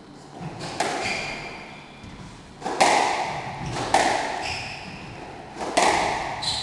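Squash ball struck back and forth in a rally: four sharp racket-and-wall hits, one to two seconds apart, each ringing in the enclosed court. A short high squeak comes near the end.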